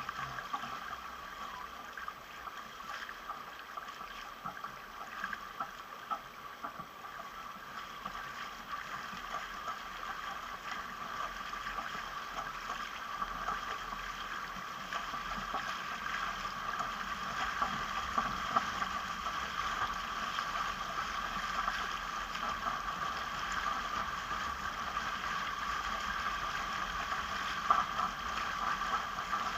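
Water rushing and splashing along a sailing catamaran's hull as it moves under sail: a steady wash with many small splashes, growing a little louder from about halfway.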